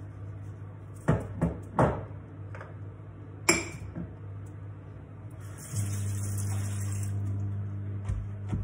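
Cookware being handled at a gas stove: a few sharp knocks, then a ringing metallic clink, over a steady low hum. About six seconds in the hum grows louder and a high hiss joins it for a couple of seconds.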